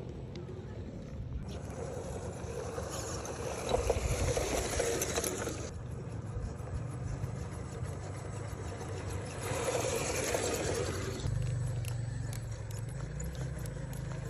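Axial SCX10 II radio-controlled rock crawler's electric motor and geared drivetrain whirring as it crawls over a dirt trail. The sound changes abruptly a few times and is louder around the fourth and tenth seconds.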